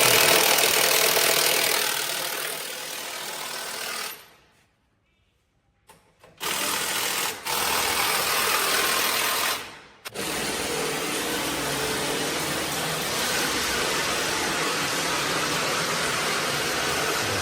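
Steady mechanical noise of a small motor running, cutting out briefly about four seconds in and again near ten seconds.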